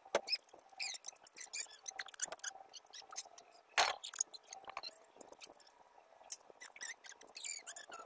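Light clicks and clinks of a hand-held angle grinder being handled, with one sharper click about four seconds in, over quick, high chirping squeaks several times a second.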